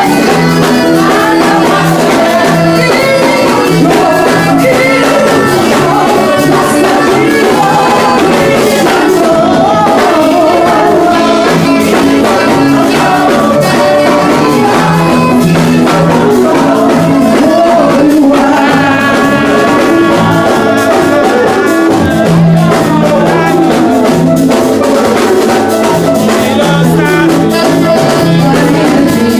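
Loud music with singing over instruments and a repeating bass line.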